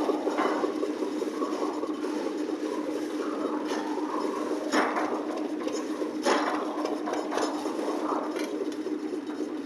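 Concrete mixer machine running with a steady hum, broken by a few sharp knocks or clanks, the loudest about five and six seconds in.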